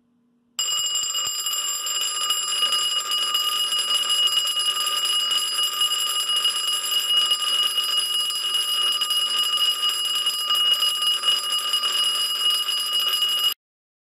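Simplex 4080 4-inch vibrating fire alarm bell, built by Faraday and run on 24 volts DC, ringing steadily and high-pitched, much like a telephone ringer. It starts about half a second in and cuts off suddenly near the end.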